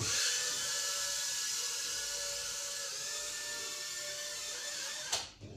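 Small caged toy quadcopter drone's four propellers whirring as it lifts off the table and flies, a steady high-pitched whine that starts at once and cuts off about five seconds in.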